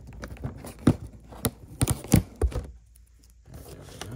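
Fingernails picking and scratching at packing tape on a cardboard box flap: a quick string of sharp scrapes and clicks, with a brief pause about three seconds in.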